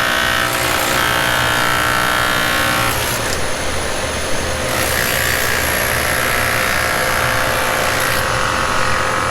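Hilti HEPA dust-extraction vacuum running loud and steady, a whining motor over a rush of air, its pitch shifting a few times as the load changes; it is there to catch the silica dust from cutting or drilling concrete.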